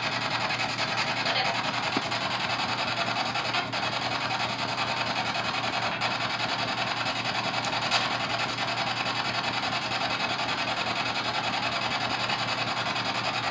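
P-SB7 spirit box sweeping through radio frequencies: a continuous choppy static hiss, in which fragments are heard as words.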